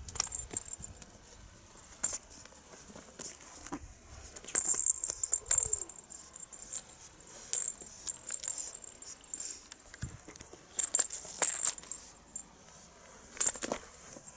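Cat-teaser wand toy jingling in repeated short bursts as it is shaken and batted by kittens, with light scuffs and clicks in between.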